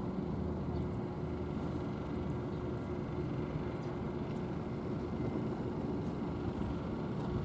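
An engine running steadily: a low, even hum that does not change.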